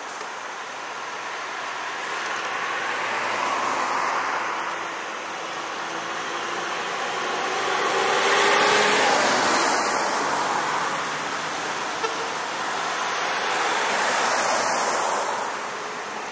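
Road traffic: several motor vehicles pass one after another, their engine and tyre noise swelling and fading three times.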